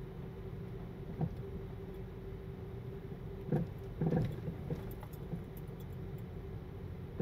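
A car driving, with steady road and engine noise and a faint steady hum, broken by a few short knocks and rattles, most of them around the middle.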